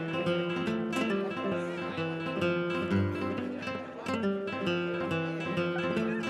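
Background music: an acoustic guitar plucked and strummed, with quickly changing notes.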